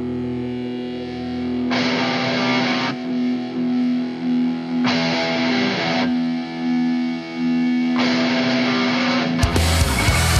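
Rock song intro: distorted electric guitar with effects over a held, pulsing note, in blocks that come and go every second or two. The full band comes in loudly about nine seconds in.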